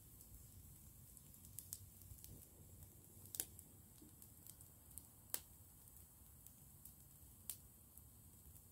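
A small wood fire of dry twigs burning quietly, with a faint low rumble and a few sharp crackling pops, the loudest two about three and a half and five and a half seconds in.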